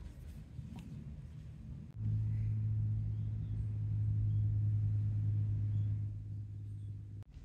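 A steady low hum comes in suddenly about two seconds in and holds for about five seconds before cutting off near the end, over a faint low rumble.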